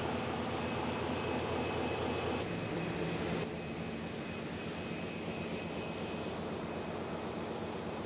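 Steady drone of a ship's engine room, with diesel machinery and electric pump motors running and a low steady hum. The noise shifts and drops a little about three and a half seconds in.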